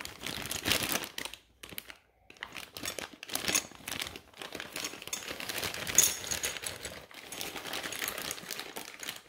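Clear plastic bags of hardware crinkling and rustling as they are handled, with small clicks. The crinkling stops briefly about two seconds in.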